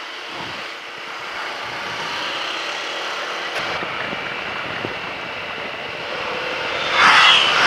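Steady rush of wind and road noise on the rider's microphone while riding a motorcycle, swelling louder near the end.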